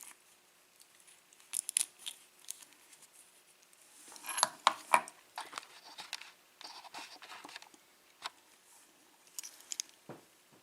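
Small metal clicks, taps and scrapes of a Schlage pin-tumbler lock being taken apart by hand, its pins and parts handled, coming in short clusters.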